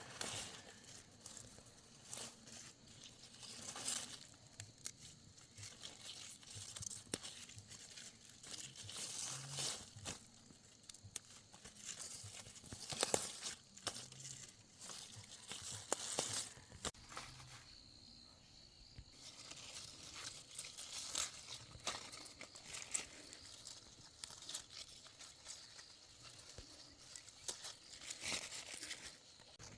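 Leafy greens being handled and picked by hand: irregular rustling of leaves and the tearing and snapping of stems.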